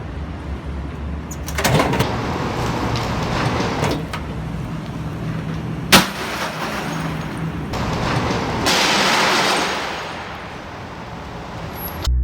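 A microwave oven hitting the ground after a drop of about 100 feet: a single sharp crash about six seconds in, over steady outdoor background noise.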